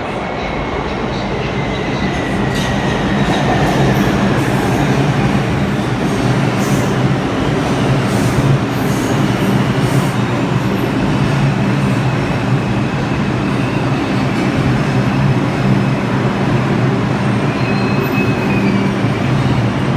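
A New York City Subway R142 train running on the rails, a steady rumble that grows louder over the first few seconds and then holds. A faint whine falls slowly in pitch near the start, and faint high wheel squeal comes later.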